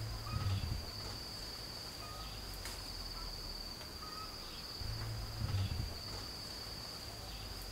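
Forest insects, cricket-like, chirring in one steady high-pitched drone, with a few faint short chirps. Two brief low thumps, about half a second in and again around five seconds in.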